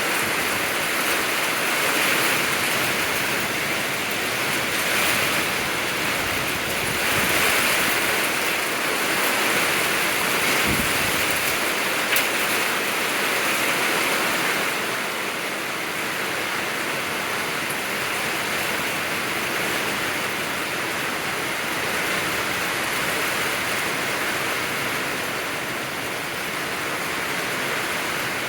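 Heavy rain pouring down in a steady rush, surging louder in the first half and easing slightly later on.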